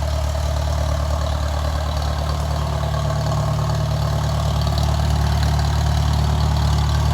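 Farmall 300 tractor engine running steadily at an even speed.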